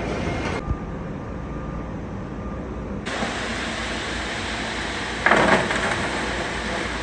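A heavy engine running steadily with a low rumble, with a short, loud hissing burst about five seconds in.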